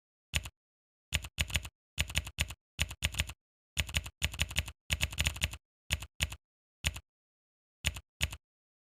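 Keystroke clicks from a phone's on-screen keyboard as text is typed, coming in quick irregular runs with complete silence between them.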